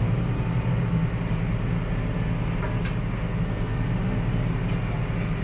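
Massey Ferguson 4707 tractor's diesel engine running steadily under load, a constant low drone.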